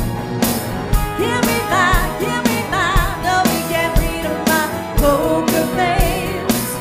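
Live cover band playing a pop-rock song: a woman singing lead with a wide vibrato over a steady drum-kit beat of about two strokes a second.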